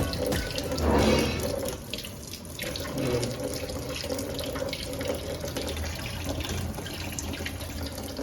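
Water running from a tap into a sink, a steady rush with a louder swell about a second in.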